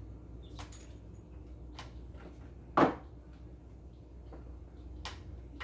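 Spice jars and containers being handled and set down on a kitchen cupboard shelf: a few light clicks and one loud knock a little under halfway through.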